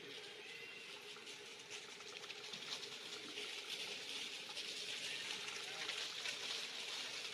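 Steady high-pitched outdoor hiss with many faint ticks and rustles, swelling slightly after the middle.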